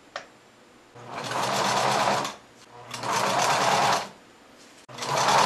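Singer domestic sewing machine stitching a wide zigzag in three runs of about a second each with short pauses between, the needle going in rapid even strokes; a single click of the stitch dial comes just before the first run.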